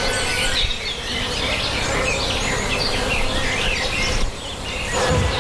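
Birds singing, a continuous stream of short chirps and whistles, over a steady buzz of insects.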